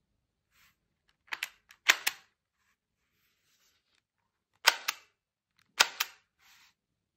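Sharp mechanical clicks of the Umarex T4E HDR 68 revolver's action being worked, in quick pairs, four times.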